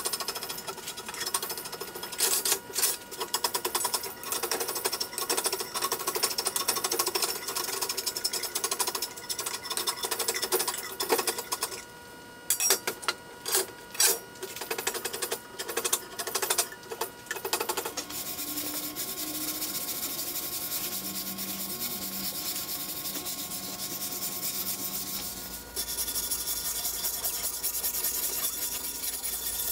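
A hand tool scraping and shaving a wooden axe handle clamped in a vise: quick repeated strokes at first, then fewer, separate strokes, turning into a steadier rubbing hiss a little past the middle.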